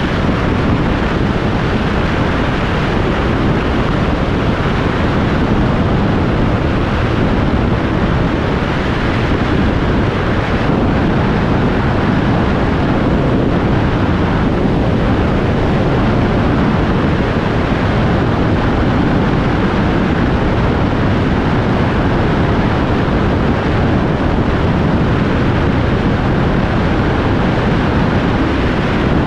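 Steady wind rush buffeting the microphone on a Kawasaki Z1000SX cruising at motorway speed, with engine and road noise underneath and no revving or gear changes.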